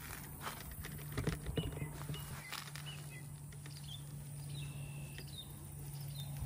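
Rustling leaves and snapping stems as tomatoes are picked by hand off the vine, with a run of short clicks and knocks in the first half. Faint high chirps come and go over a steady low hum.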